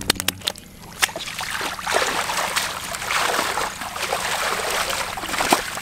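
Shallow water splashing and sloshing as hands grope through submerged grass for fish, with a few sharp clicks at the start and steady splashing after that.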